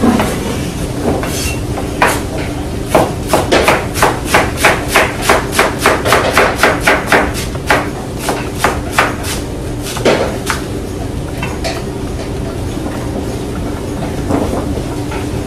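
A fast, regular run of sharp knocks, about four a second, from about three seconds in until about halfway, with scattered single knocks before and after, over a steady low hum.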